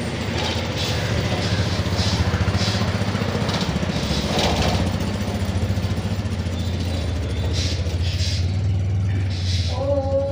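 An engine running steadily at idle: a low, fast-pulsing hum.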